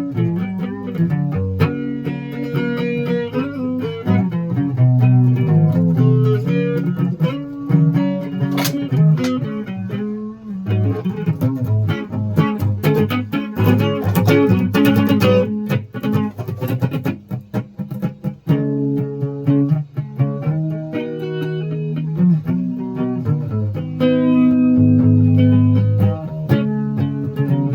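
Guitar being played: a run of plucked notes in the low and middle range, with a faster passage of quick picked notes around the middle.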